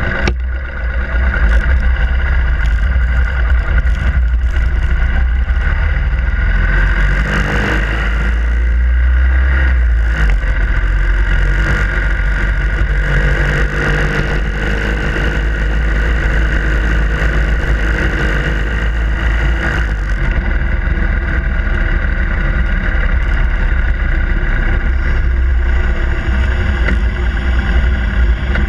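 Harley-Davidson Iron 883's air-cooled V-twin engine running steadily under way, close to the microphone, with an added hiss for a stretch in the middle.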